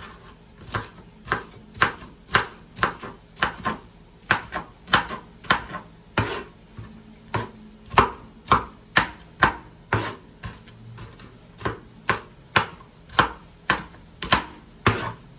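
Kitchen knife chopping a green pepper, sharp knocks of the blade about two a second.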